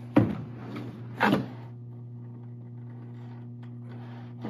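A cardboard game-console box being handled and opened. A sharp knock comes just after the start, a louder scraping rustle of cardboard about a second later, and then faint rustles as the flap is lifted, over a steady low hum.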